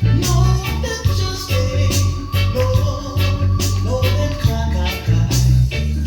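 Reggae music with a heavy bass line, shaker percussion and a sung or played melody.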